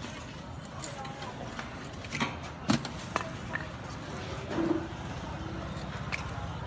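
A few sharp metallic clicks and knocks from someone handling a charcoal grill, scattered over a steady low rumble, with a short voice-like sound about halfway through.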